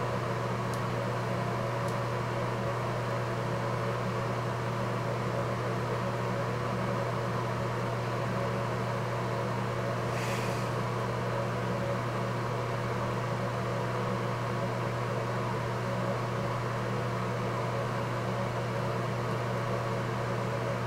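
Steady low mechanical hum, unchanging throughout, with a brief soft rustle about ten seconds in.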